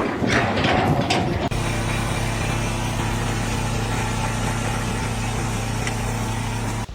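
An engine running steadily at an even pitch, after about a second and a half of rougher, shifting noise, cut off suddenly near the end.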